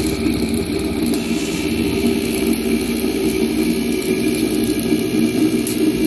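Homemade Bedini generator running: its brushed fan motor gives a steady mechanical hum with several even tones.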